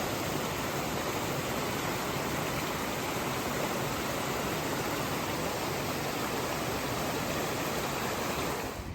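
Creek water rushing steadily, a constant even wash of sound that drops away suddenly near the end.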